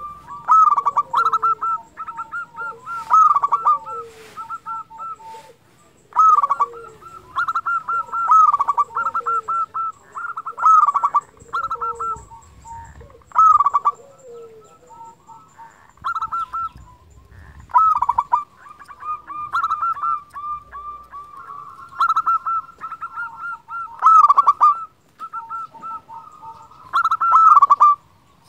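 Zebra dove (perkutut) singing: phrases of rapid staccato coos, one every second or two with short pauses between.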